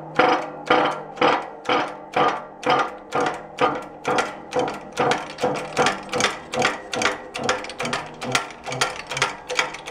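Hand-pumped hydraulic shop press being worked steadily to push a shaft out of a VW bus reduction gear box housing. A regular clack about twice a second, each stroke with a short metallic ring.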